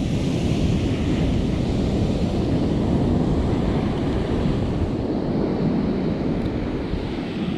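Ocean surf breaking on a sandy beach, a steady rushing wash, with wind buffeting the microphone.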